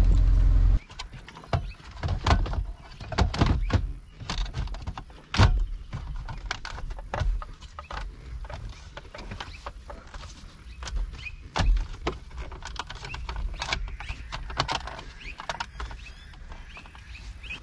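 Car radio playing music through the speakers, cut off abruptly under a second in. Then irregular plastic clicks, knocks and rustles of a head unit being handled and pushed into a car dashboard opening, with a few louder thuds.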